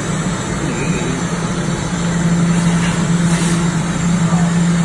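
Minute Key self-service key-duplicating kiosk running while cutting a key copy: a steady, low motor hum that grows louder about two seconds in.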